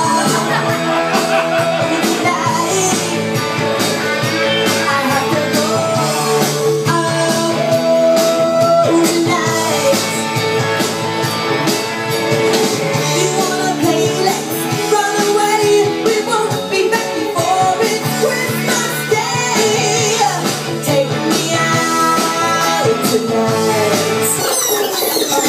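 Recorded pop-rock song with a singing voice over a full band, played loud over a bar's sound system.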